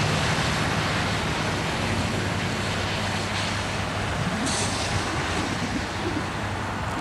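BNSF diesel-electric locomotive running as it pulls a coal train slowly past, with a steady low engine hum over a broad rumble. A brief hiss about four and a half seconds in.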